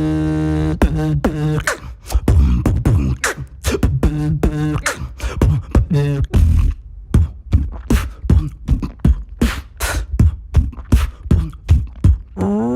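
Beatboxer's mouth-made beat: a held hummed tone, cut off just under a second in by a fast, even pattern of vocal kick and snare hits with short pitched vocal bits woven in.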